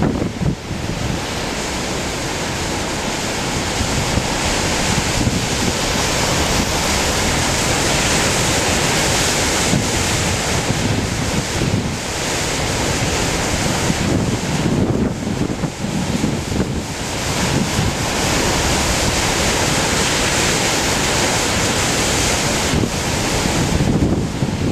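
Heavy ocean surf from a typhoon swell breaking and washing, in rising and falling surges, with strong wind buffeting the microphone.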